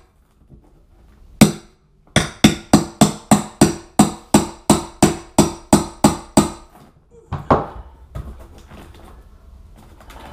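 A hammer strikes a metal scraper blade driven under glued cork underlayment on a plywood subfloor. There is one tap, then a quick run of ringing metal-on-metal strikes, about three a second. Near the end they give way to a scrape and the scratchy crumbling of cork being pried and peeled up.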